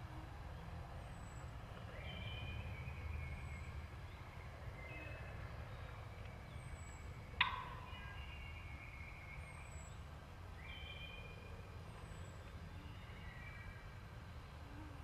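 Woodland birds singing short phrases every couple of seconds over a steady low rumble, with one sharp snap about seven seconds in.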